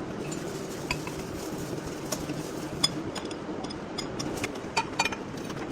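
Scattered light metal-on-metal clinks and taps, each ringing briefly, over a steady low machine hum.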